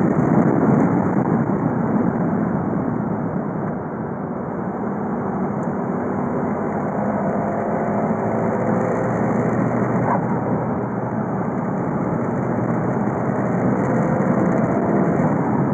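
VW Golf Mk5 2.0 TDI four-cylinder turbodiesel running steadily on the move, mixed with road noise, its pitch drifting slowly up and down.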